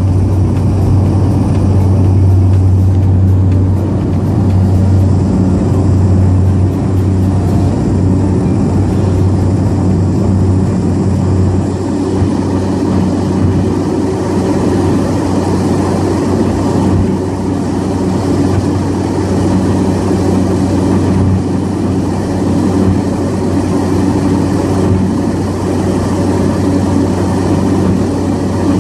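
Small propeller plane's engine droning steadily, heard from inside the cabin during the takeoff run and climb-out: a loud low hum with a buzz above it that holds steady throughout.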